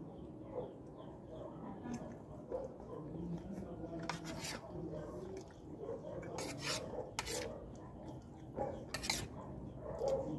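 Spoon scraping and clinking on a plate while eating, with a few short, sharp scrapes between about four and nine seconds in.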